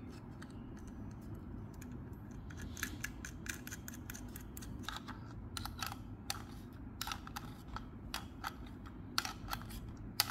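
Light, irregular metallic clicks of an open-end spanner working an 11 mm nut tight on the threaded bushing of a water heater's temperature-control variable resistor. The clicks start about two and a half seconds in.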